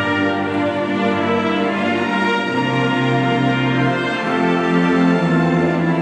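Symphony orchestra playing film music: long sustained chords with strings prominent, the harmony shifting about two and a half seconds in and again just past four seconds.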